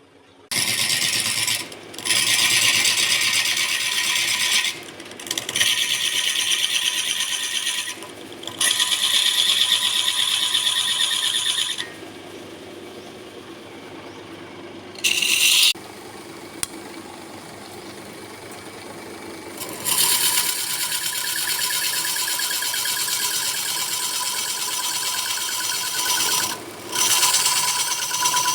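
Woodturning: a tool worked against wood spinning on a lathe, in bursts of a few seconds separated by short pauses, with a quieter stretch in the middle and a long steady pass near the end.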